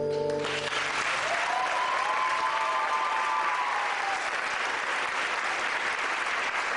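The song's final note cuts off and audience applause breaks out and continues steadily, with a drawn-out cheer rising and falling over it about two seconds in.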